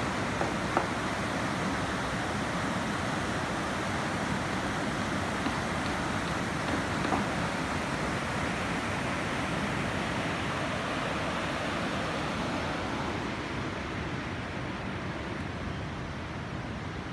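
The swollen Yerres river rushing in flood: a steady roar of water, with a couple of faint knocks. It grows somewhat quieter and duller after about thirteen seconds.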